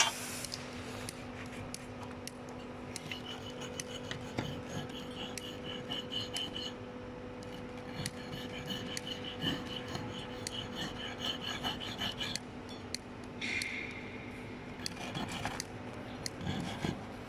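Fiber laser welder working on 1.5 mm copper: scratchy crackling in two long stretches, then a shorter burst near the end, over a steady machine hum with scattered clicks.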